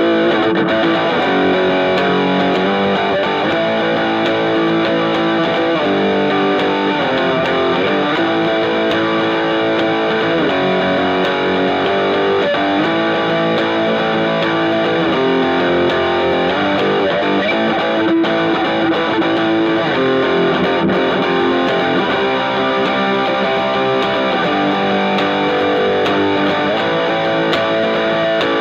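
Fernandes TEJ Telecaster-style electric guitar strummed through an amp, with chords left ringing and changing every second or two at an even loudness.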